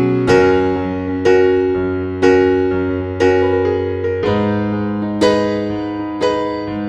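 Slow piano background music: notes struck about once a second, each ringing and fading, over held bass notes that change about four seconds in.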